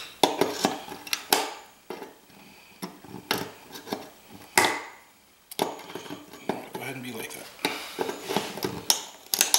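Needle-nose pliers clicking and scraping against the spring-loaded push pins of an aluminum heat sink on a circuit board, prying them loose: an irregular run of sharp metallic clicks and taps, the strongest about halfway through.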